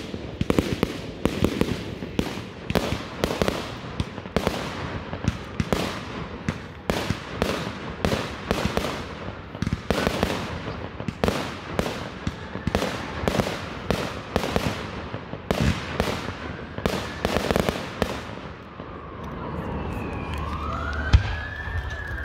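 Fireworks going off in a rapid, echoing run of bangs and crackles, two or three a second. Near the end the bangs die away and a wailing tone comes in, rising and then slowly falling in pitch, with one sharp bang a second before the end.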